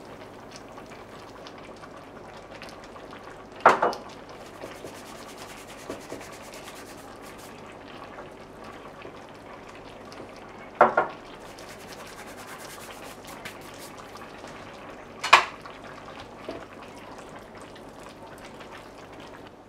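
Cooking in a large stainless steel stockpot of thick cabbage and sauerkraut stew: three sharp knocks on the pot, spread several seconds apart, over a faint steady hiss. Near the end a spatula stirs the thick stew.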